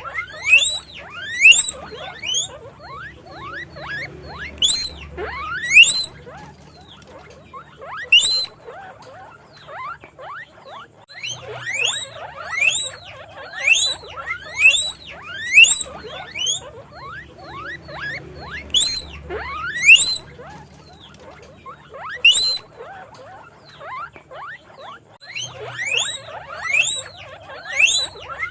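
Guinea pig wheeking: high whistling squeaks that each sweep steeply upward in pitch, repeated in quick runs with short pauses between.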